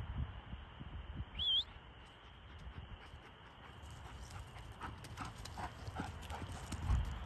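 A dog's paws on dry grass and fallen leaves as it trots and then runs, with a quick run of soft footfalls over the last few seconds. A brief high chirp sounds about one and a half seconds in.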